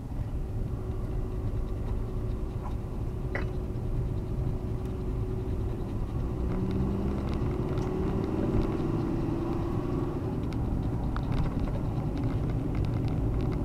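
A car driving on a rough mountain road, heard from inside the cabin: a steady low rumble of engine and tyres, with the engine note shifting a little about halfway through and faint scattered ticks.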